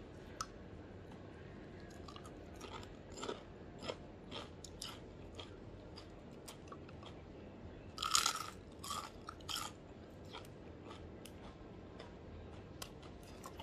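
A person biting and chewing crunchy fried food, a series of crisp crunches with the loudest burst about eight seconds in.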